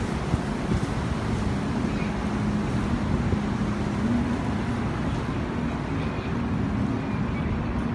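Motor yacht's engines running as it cruises past: a steady low rumble with a slightly wavering hum.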